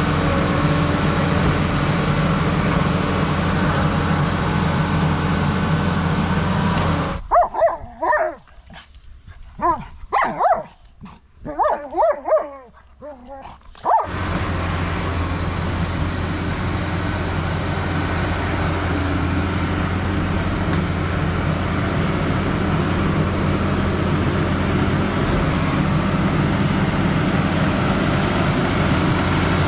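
Case crawler dozer's diesel engine running steadily. It cuts out about seven seconds in and dogs whine and yip for about seven seconds, then the dozer engine comes back and runs steadily to the end.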